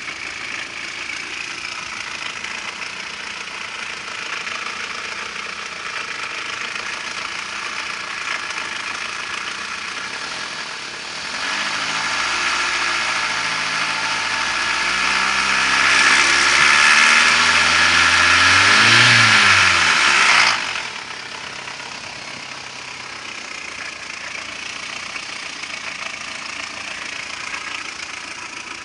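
ZMZ-406 inline four-cylinder petrol engine idling, revved up from about eleven seconds in, held high, then dropped sharply back to idle about twenty seconds in. The owner hears a knock of unknown cause in this engine.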